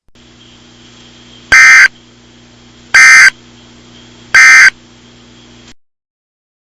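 Emergency Alert System end-of-message data bursts: three short, loud bursts of warbling digital tones about a second and a half apart, the code that closes an EAS alert. They sound over a faint steady hum that cuts off near the end.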